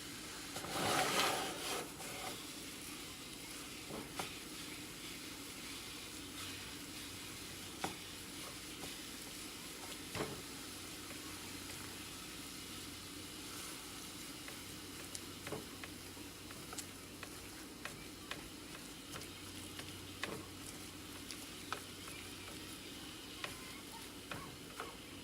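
Ground beef sizzling in a frying pan while a utensil chops and breaks it up, with scattered taps and scrapes against the pan. The scraping is loudest for about a second near the start.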